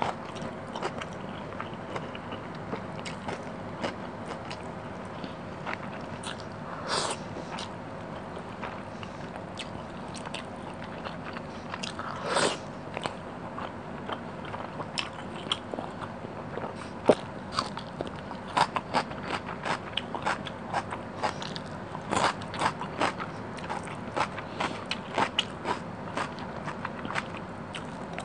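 Close-miked chewing and wet mouth sounds of fish curry and rice eaten by hand: many small irregular clicks, with a few louder ones scattered through.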